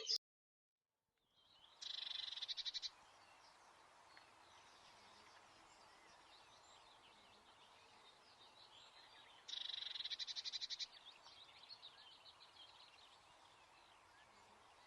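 Small garden songbird singing a fast trill of rapid repeated high notes lasting about a second, given twice several seconds apart. Faint twittering and low background noise lie between the trills.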